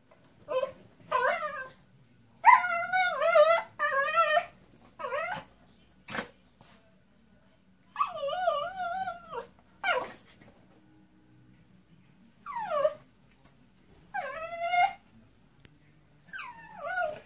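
Miniature pinscher whining excitedly in a string of high, wavering whines, some short and some drawn out over a second, with quiet gaps between. A single sharp knock comes about six seconds in.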